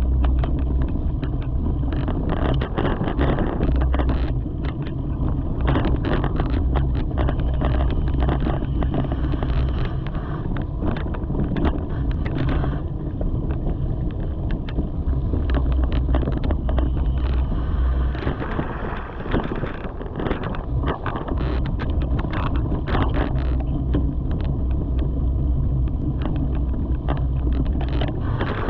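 Mountain bike ridden fast down a leaf-covered dirt trail: steady wind rumble on the microphone, with the tyres crunching over leaves and the bike rattling and clattering over bumps.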